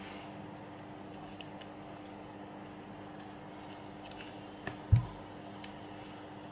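Origami paper being creased and folded by hand: faint crinkles and small clicks over a steady low hum, with a sharp low thump about five seconds in, just after a smaller click.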